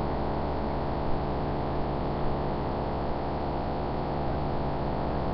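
Steady low electrical hum with an even hiss, and no other sound standing out.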